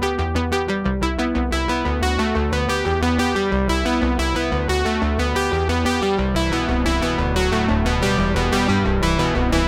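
Background music: synthesizer and electric-piano keyboard music with quick, regularly repeating notes and a steady bass line.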